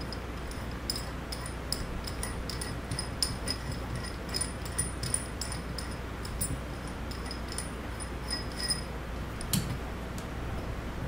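Light metallic clicks and clinks, each with a short high ring, as hand-held steel valve parts touch, with a sharper click near the end over a steady low hum.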